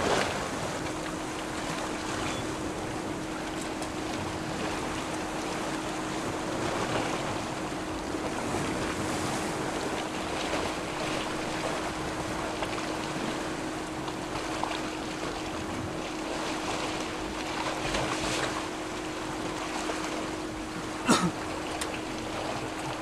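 Wind and sea noise of a recording made on open water, with a steady hum throughout. A short, sharp sound that falls in pitch comes near the end.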